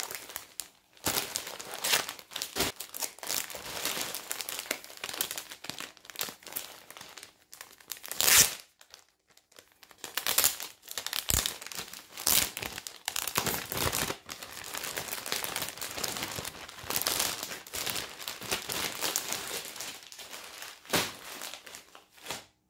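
Clear plastic saree packets crinkling as they are handled and shifted, in irregular rustling bursts with short pauses.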